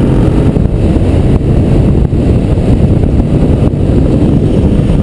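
Motorcycle under way, its engine running under steady, loud wind noise buffeting the microphone.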